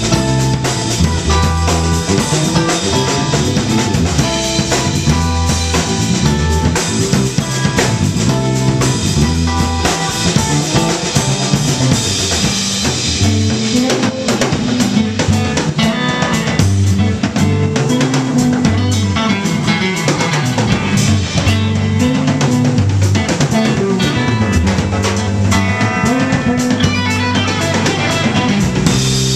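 Live instrumental rock played by a trio of electric guitar, electric bass and drum kit, with a moving bass line under the guitar and steady drum and cymbal hits.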